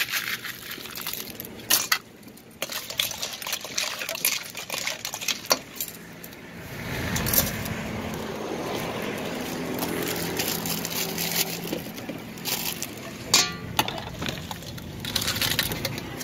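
Blood cockle shells clattering and clinking as gloved hands toss them in a plastic colander. Later a spoon clinks in a steel mixing bowl of chilli dressing, and near the end the dressing is poured out.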